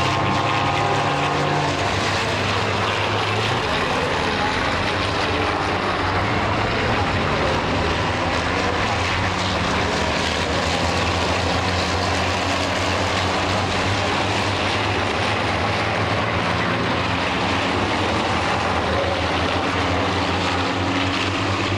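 Several racing trucks' turbodiesel engines running hard at speed, a continuous engine drone whose pitch shifts in steps as the trucks change gear and come off the throttle.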